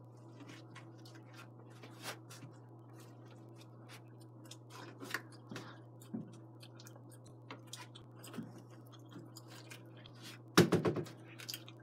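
Steady low hum with scattered small clicks and crackles, and a short louder clatter about ten and a half seconds in.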